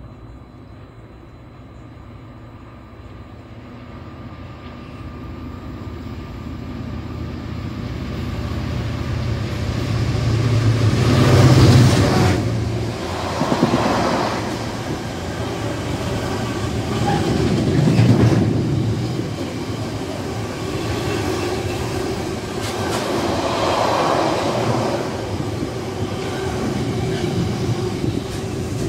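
Diesel locomotive hauling a container freight train, approaching and passing close by. It grows steadily louder to a peak about twelve seconds in, then the long rake of container wagons rolls past with a continuous rumble and clatter of wheels, swelling and easing several times.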